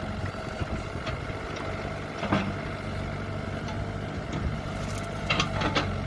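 Kobelco 07 excavator's diesel engine running steadily while digging, with a short knock about two seconds in and a few more knocks near the end.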